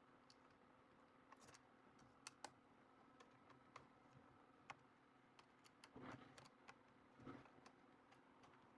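Near silence with faint, scattered small clicks and ticks, and soft handling noise about six and seven seconds in, from a smart switch being screwed to its wall box by hand.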